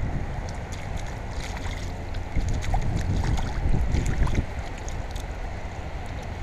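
Wind buffeting the microphone: a loud, gusting low rumble, with scattered faint ticks over it.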